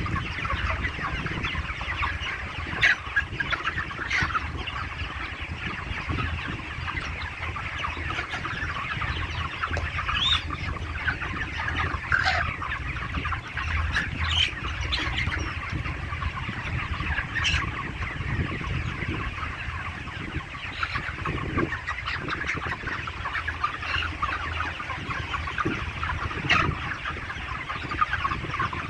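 A large flock of 35-day-old broiler chickens in a poultry shed, many birds clucking and cheeping at once in a steady dense chatter. Now and then a single louder call stands out above the flock.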